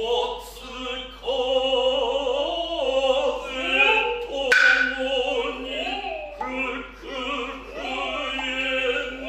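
Noh chanting (utai): male voices chant in long, wavering, sustained phrases. A single sharp drum stroke from the hayashi ensemble comes about four and a half seconds in.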